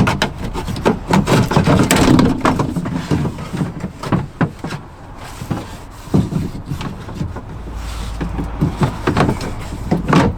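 Irregular clicks, knocks and rattles of a door handle part being worked and slid into the inner shell of a Land Rover Discovery 4 rear door, hard parts striking the door panel many times.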